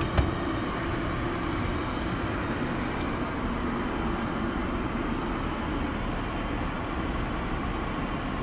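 Steady, even cabin noise of a Boeing 787 airliner heard inside its overhead crew rest compartment: the drone of airflow and engines. A single click about a quarter second in as the push-button latch of a closet door is pressed.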